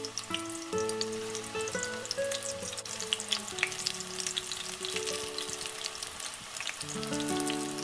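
Spinach and onion pakodas deep-frying in vegetable oil, a steady sizzle with dense crackling pops, over background music.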